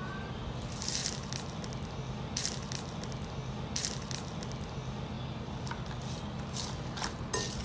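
Slime being squeezed and pressed by hand, with scattered crackling pops, over a steady low hum.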